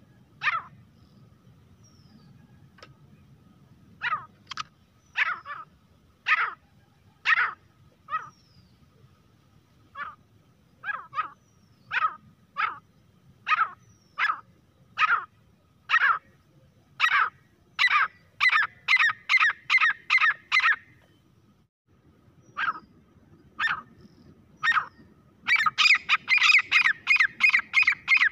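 Grey francolin calling with sharp, shrill repeated notes. The notes are spaced out at first and quicken into a fast run. After a short pause, a dense rapid series near the end is the loudest part.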